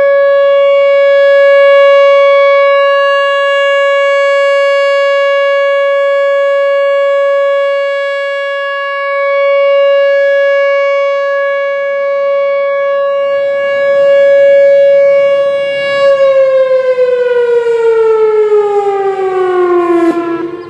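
Whelen Vortex R4 rotating electromechanical warning siren sounding a steady alert tone, its loudness swelling and fading as it turns. In the last five seconds it winds down, the pitch sliding steadily lower.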